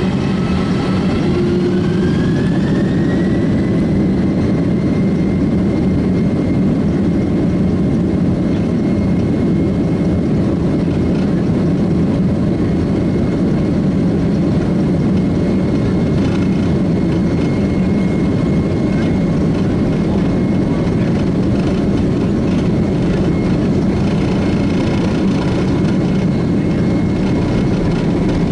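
Boeing 767-300's jet engines heard from inside the cabin: a loud, steady low rumble, with an engine whine that climbs in pitch over the first few seconds and then holds steady.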